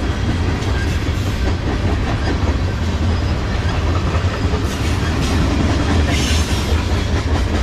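Freight train of loaded propane tank cars rolling slowly past, a steady heavy rumble of wheels on rail with the clack of wheels over the rail joints.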